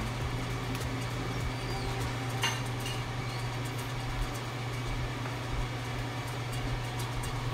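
A steady low hum with a faint click about two and a half seconds in.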